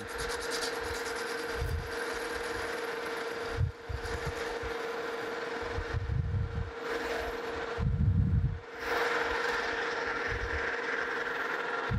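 Metal lathe running with a steady whine as a cutting tool faces the inside of the hub of a cast iron wheel casting. A few low rumbles come and go, the loudest about eight seconds in.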